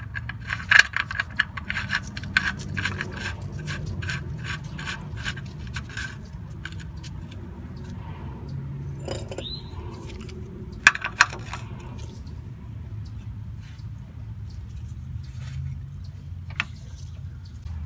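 Ratchet and socket clicking in quick metallic ticks, about three or four a second, as the fill plug is run into the rear differential housing after a gear-oil refill. A few separate sharp metal clicks come in the middle and once near the end, over a steady low hum.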